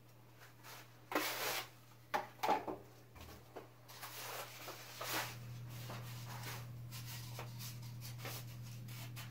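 Short bursts of scraping and rubbing as drywall tools are handled, then a steadier rustle as a roll of paper drywall tape is unrolled, over a steady low hum.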